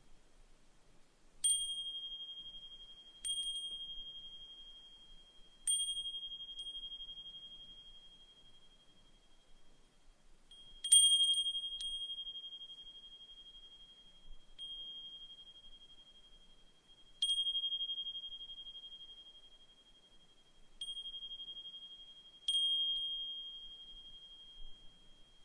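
Brass suzumushi furin (Japanese wind chime) being struck by its clapper at irregular intervals, about nine times, each strike a single high, clear ring that fades slowly and overlaps the next, so the tone never quite dies away. The loudest strike comes about halfway through.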